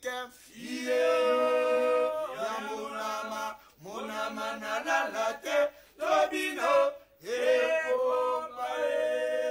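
A man singing unaccompanied in a Congolese folk style: several long, held phrases, each sliding up into its note, with short breaths between them.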